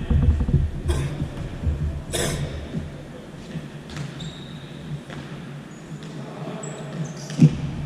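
Futsal ball thuds, kicked or bouncing, four sharp hits about a second or two apart with the echo of a large hall, over a low throbbing hum that drops out for a few seconds in the middle.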